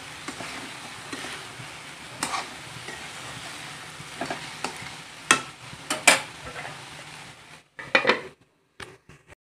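Chicken and vegetables frying in a kadai with a steady sizzle, while a spatula stirs and scrapes against the pan with several sharp scrapes. Near the end the sizzle cuts off and a metal lid clatters onto the pan.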